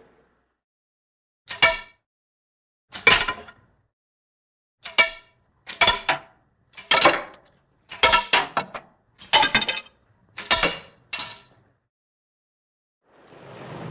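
Dishes clinking: about a dozen separate hard clinks, each ringing briefly, spaced a second or so apart with a few quick pairs.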